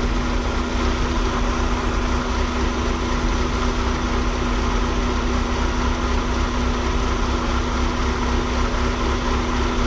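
Toyota Celica engine idling steadily, with one even tone held over a low rumble.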